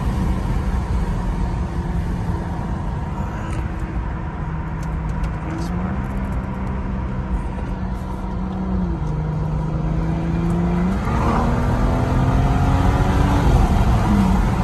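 BMW X3 xDrive35i's N55 turbocharged inline-six, breathing through an aftermarket AFE dry air filter, heard from inside the cabin while driving, over road and tyre rumble. The engine note holds steady, drops in pitch about two-thirds of the way through, then climbs for a couple of seconds before dropping again near the end.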